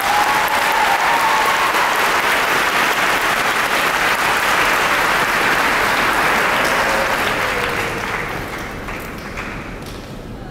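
Audience applauding, loud and steady, then dying away over the last couple of seconds.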